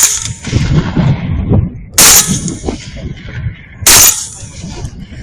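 Rifle shots fired at hogs: three loud cracks about two seconds apart, each trailing off in an echo.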